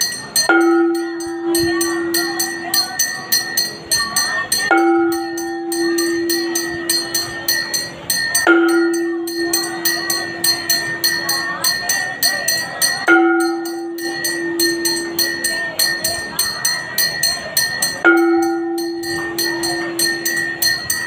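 Temple bells rung fast and without pause during an aarti, with a steady high ringing tone. A low note is held for a few seconds at a time, five times over with short breaks between, and voices sing along.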